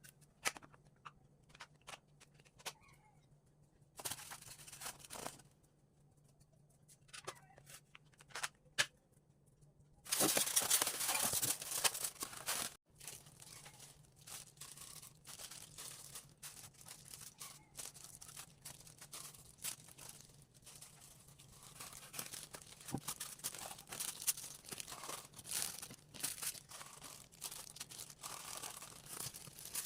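Crinkling and tearing of packaging while meals are packed, with scattered clicks and taps. A louder stretch of rustling starts about ten seconds in and lasts a couple of seconds.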